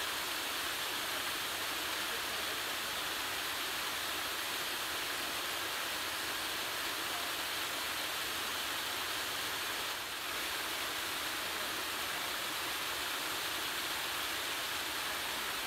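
Steady rush of running water from a woodland creek and small waterfall, an even hiss with no breaks.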